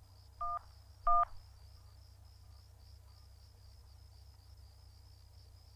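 Two short mobile-phone keypad tones, about half a second apart, each a dual-tone dialing beep, the second louder. A faint, steady, high pulsing chirp of crickets runs underneath.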